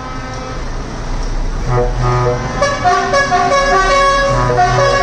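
Truck and car horns honking, several at once at different pitches, starting and stopping over one another from about one and a half seconds in. Under them runs the low, steady noise of vehicle engines.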